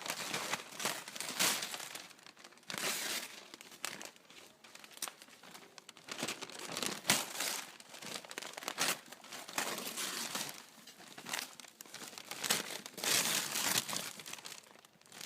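Crinkly wrapping on a bouquet of flowers being crumpled and torn by hand in irregular rustling bursts as it is pulled open.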